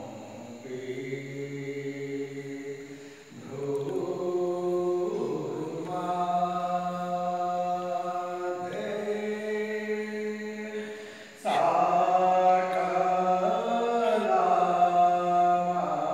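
Devotional aarti chant sung in long held notes, each phrase sustained for a few seconds before moving to the next pitch; a louder phrase comes in suddenly about eleven and a half seconds in.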